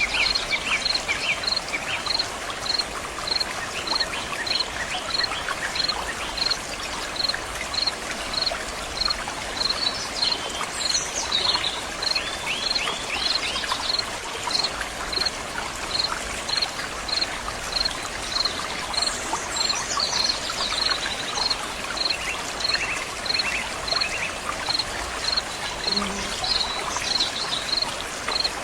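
Water running and trickling steadily. An insect chirps at one high pitch about twice a second throughout, and birds call in short chirping bursts a few times.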